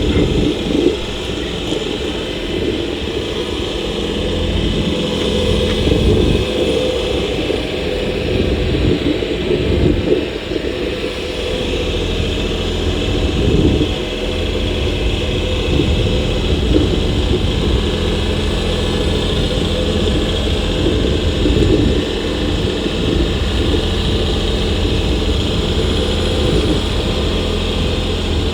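Kioti compact tractor's diesel engine running steadily as the loader with a jib lifts and lowers a beam.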